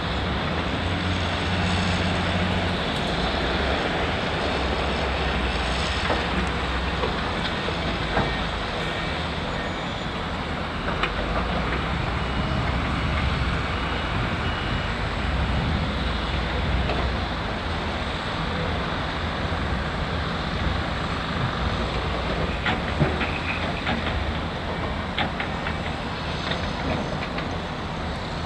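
Heavy diesel earthmoving machinery running steadily, with scattered clanks and knocks over the engine noise, the loudest about 23 seconds in.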